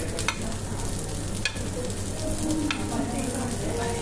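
Food sizzling on the hot grill plate of an electric hot-pot-and-grill cooker, with three sharp clicks of a utensil against the plate about a second apart.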